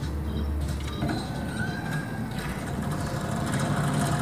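Steady low mechanical drone, with a faint thin tone rising and falling briefly about a second in.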